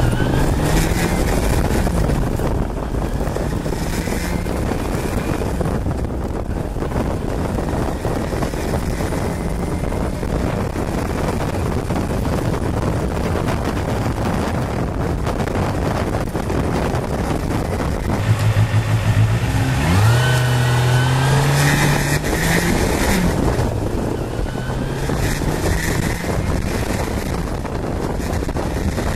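Kawasaki Balius 250cc inline-four motorcycle engine running under way with wind noise on the microphone. About two-thirds of the way through, the engine revs up twice, rising in pitch, then settles back to a steady run.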